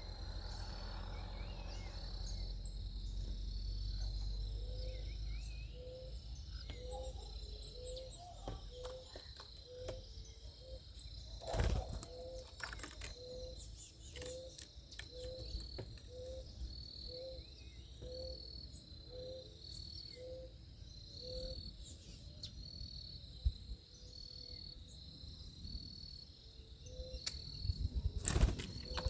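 Backyard ambience: a steady high insect trill, crickets, with a short low call repeated about twice a second for much of the time. A few sharp knocks come through, the loudest about twelve seconds in and near the end.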